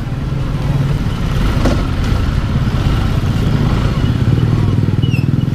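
Motorcycle engine running steadily, picked up close by a camera mounted on the bike, with rapid low pulsing from its firing.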